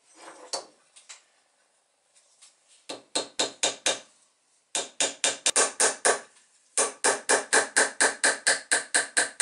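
Small hammer tapping a little metal staple into a wooden yard: three runs of quick, even taps at about six a second, the last run the longest.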